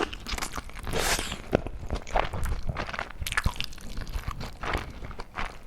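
Close-miked eating: irregular crunching, biting and chewing of food, with wet mouth clicks.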